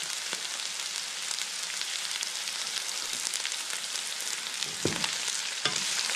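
Meat and green vegetables sizzling steadily as they are stir-fried in a large steel wok, with a wooden spatula turning them and scraping the pan a couple of times near the end.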